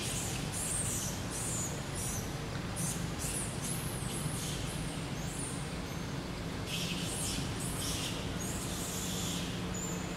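Small birds chirping in short, irregular high bursts, over a steady low hum.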